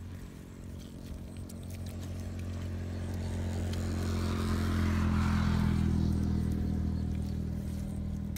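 A motor vehicle's engine passing by, a low hum that grows louder to a peak around the middle and then fades away. There is faint scraping of hands digging in wet soil.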